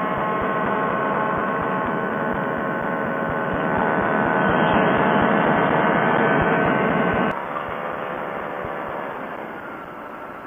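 Quicksilver ultralight's two-stroke engine and pusher propeller running at high power, a steady buzzing drone. About seven seconds in, the sound drops suddenly to a quieter drone that slowly fades.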